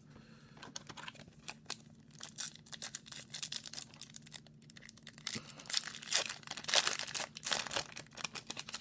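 A foil-wrapped hockey card pack being torn open by hand, its wrapper crinkling in a run of irregular crackles that grows louder in the second half as it is peeled back from the cards.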